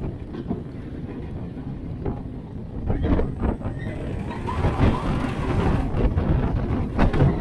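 Wind buffeting the microphone over the low rumble of a steel roller coaster train running along its track at speed. It grows louder about three seconds in, with a few short clatters.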